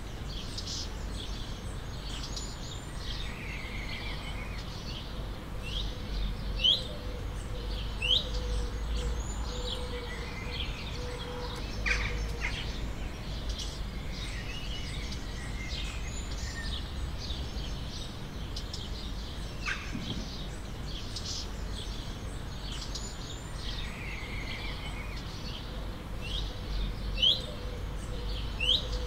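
Several birds chirping and calling, with short rising whistled calls standing out a few times, over a steady low outdoor background rumble.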